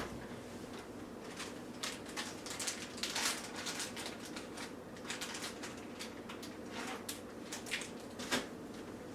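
Scattered light taps, clicks and rustles of hands handling food and a plastic blender cup, with a louder tap about three seconds in and another near the end.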